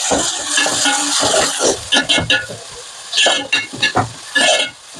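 Food frying in hot oil in a pan: a dense sizzle for the first couple of seconds, then a spatula stirring and scraping through it in about six separate strokes.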